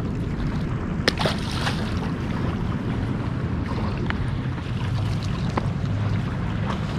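Wind rumbling on the microphone over sea washing against shoreline rocks, with a few short sharp clicks.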